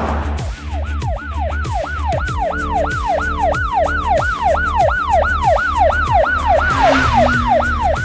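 Electronic ambulance siren in a fast yelp pattern, its pitch sweeping quickly up and down about three times a second.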